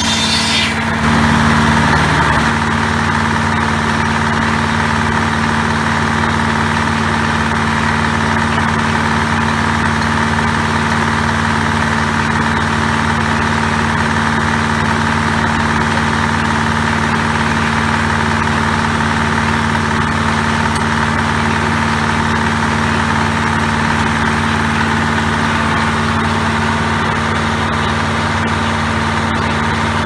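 Diesel engine of a small circular sawmill running steadily at a constant speed, with a short louder stretch about a second in.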